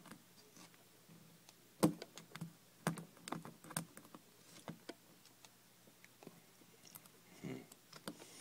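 Scattered small clicks and taps of metal on metal as a tool works at the retaining clip on the back of a lock cylinder, the sharpest about two and three seconds in.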